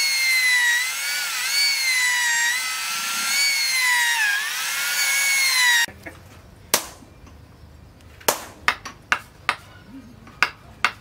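Corded electric drill whining as it bores into a wooden knife handle, its pitch dipping and recovering as the bit loads up in the wood; it stops abruptly about six seconds in. Then about six sharp, irregularly spaced wooden knocks follow as the handle, smoking from the hot tang, is knocked into place.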